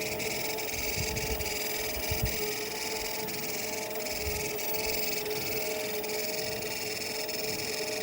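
Treadmill running with its drive belt fitted, giving a steady high squeal over a motor hum.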